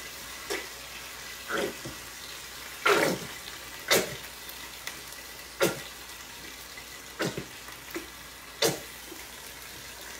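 Plastic squeeze bottle of barbecue sauce being squeezed, the sauce sputtering and squirting out in about eight short bursts, the loudest about three and four seconds in. A low steady sizzle from the pot runs under it.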